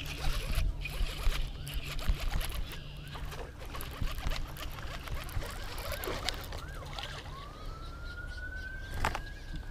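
Distant fire engine siren wailing, its pitch climbing slowly over the last couple of seconds, with some warbling glides before it. Knocks and rustling from close handling run over it.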